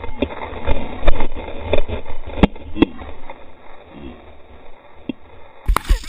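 Wind buffeting an action camera's microphone as it moves fast over a packed snow trail, with irregular knocks and crunches from the ride. The sound cuts abruptly to a different recording near the end.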